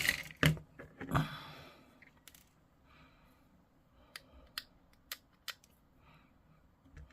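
Hobby clippers snipping small plastic parts from a model kit's frame: handling rustle and knocks at first, then a handful of sharp separate clicks.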